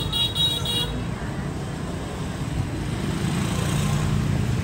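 Motor scooter engine running and approaching through a narrow alley, its low hum growing a little louder about three seconds in. A quick run of four short high beeps sounds in the first second.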